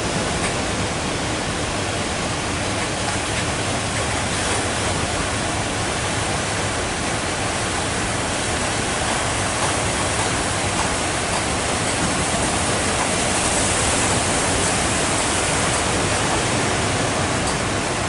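Heavy surf: large waves breaking and churning toward the shore in a steady, loud rush of noise, swelling slightly about two-thirds of the way through.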